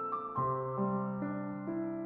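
Soft, slow keyboard music: sustained notes, a new one entering about every half second, over a held low bass note.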